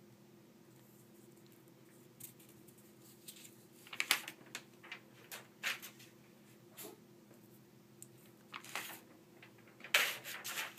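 Sheets of notebook paper rustling and crinkling as they are handled and swapped, in short scattered rustles that are loudest near the end, over a faint steady hum.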